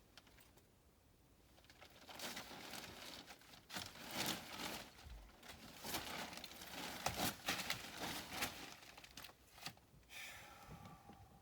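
Irregular crinkling and rustling handling noises in uneven bursts, with a short pitched squeak near the end.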